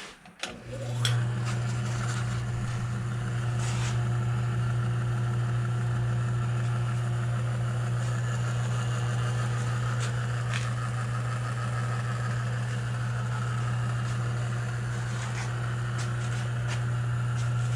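1957 Diamond horizontal milling machine starting up about a second in and running steadily, driving its newly installed power-feed gear. Its electric drive gives a strong, even low hum, with a few faint clicks along the way.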